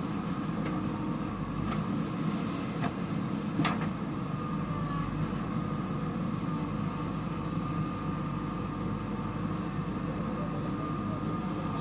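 JCB 3DX backhoe loader's diesel engine running steadily as the machine works, with a few sharp knocks in the first few seconds.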